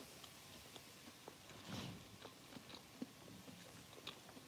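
Soft mouth sounds of a person chewing a mouthful of sushi roll: small wet clicks and smacks, with a short louder swell a little under two seconds in.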